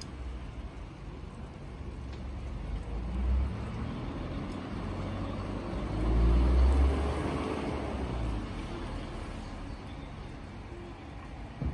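Road traffic: steady low rumble, with a vehicle passing about three seconds in and a louder one swelling and fading about six to seven seconds in.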